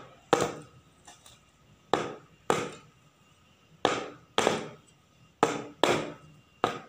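Steel cake tin full of batter knocked down onto a hard floor, about eight knocks in loose pairs, each with a short ring. The tapping brings air bubbles up out of the cake batter before baking.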